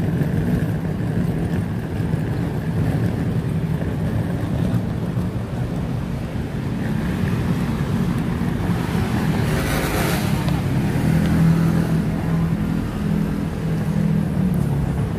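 Steady rumble of city traffic, with a brief hiss that swells and fades about ten seconds in.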